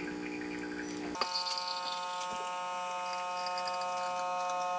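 MiiCoffee Apex espresso machine's pump humming steadily as it pulls a shot. About a second in there is a click and the hum shifts in pitch, then runs on steadily.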